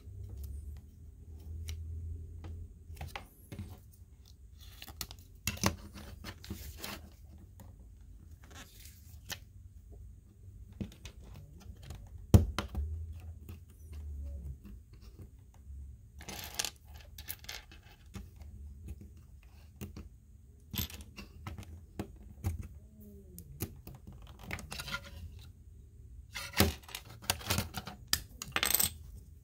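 Small plastic Lego pieces being handled and pressed together: scattered clicks and clatter with a few short rustling stretches, and one sharp click about twelve seconds in.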